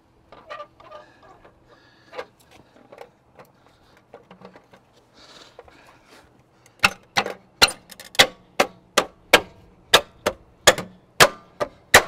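Plastic Tesla aero wheel cover being fitted onto the wheel: soft clicks and handling noises as it is lined up, then, about seven seconds in, a steady run of sharp knocks, about three a second, as it is tapped home onto its clips.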